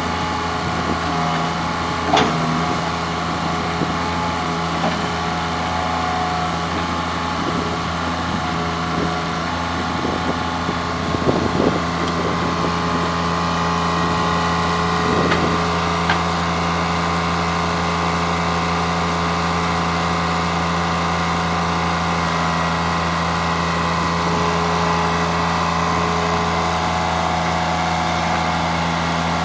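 Diesel engine of a 2006 Allmond Bros TLB425ESL backhoe loader running at a steady idle, with a few short knocks, one about two seconds in, a cluster near the middle and one a few seconds later.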